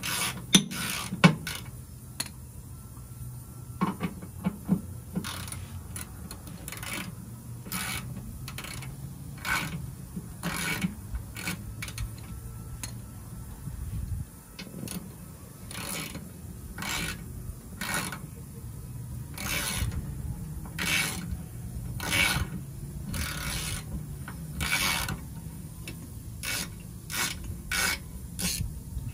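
Hand socket ratchet backing out a skid plate bolt: the pawl rattles in a short burst on each return stroke, about one stroke every second or so. A couple of sharper metal clicks sound near the start.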